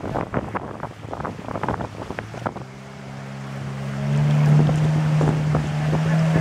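Motorised river longboat under way: water rushing and splashing against the hull, then about two and a half seconds in the engine's steady low hum comes up and grows louder around four seconds in.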